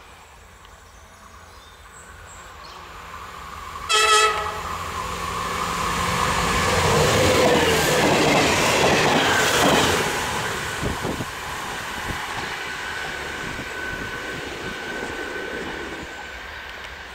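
CP class 592 diesel multiple unit approaching and passing close by. It gives one short horn blast about four seconds in, then its diesel engines and wheels are loudest as it goes past, with a few sharp wheel clacks on the rails just after. The sound fades as it moves away.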